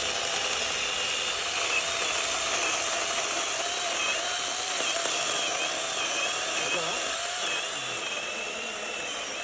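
Dagmara 12-inch battery-powered chainsaw running and cutting wood: a steady electric motor and chain whine whose pitch dips and wavers under load.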